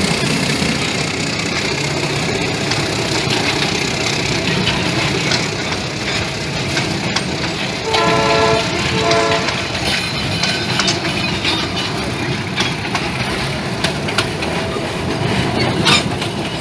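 Train of passenger cars rolling past on the rails with continuous wheel and rail noise, a sharp knock near the end. About eight seconds in, the ALCO RS8 diesel locomotive hauling them sounds its horn in two short blasts.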